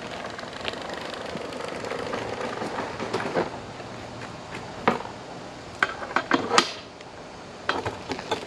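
Steady background noise with a series of sharp knocks and clanks in the second half, several in quick succession.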